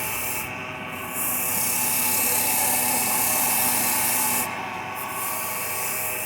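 Wood lathe running with a steady hum while a tool or abrasive is held against the spinning wood, making a hissing rub. The hiss is loudest from about a second in to past four seconds, then eases and comes back more weakly near the end.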